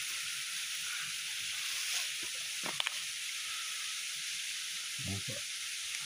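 Steady rushing hiss of a waterfall's falling water, with a single short click a little before three seconds in.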